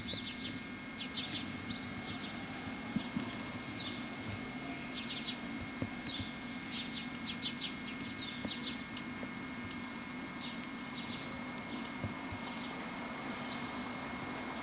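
Small birds chirping, many short high chirps scattered throughout, over a steady low hum and a faint constant high whine.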